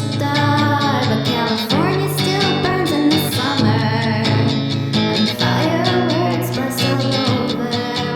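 Song demo: a solo singer with guitar accompaniment, the voice carrying a melody over sustained chords.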